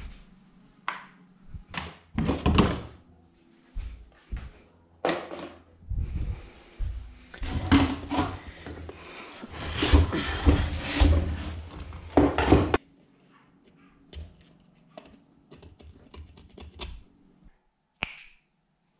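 Irregular clattering and knocking of hard objects being handled, busiest in the middle, over a faint steady low hum that stops near the end.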